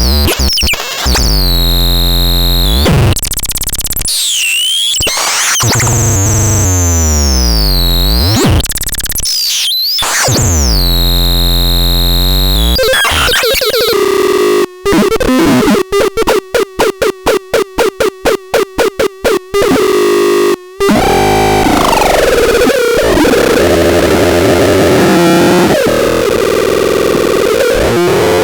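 Rubbish Synth 9 synthesizer playing buzzy tones that glide up and down in pitch. About fifteen seconds in it chops into a fast stuttering pulse of about four notes a second, then turns into a harsh, noisy wash for the last several seconds.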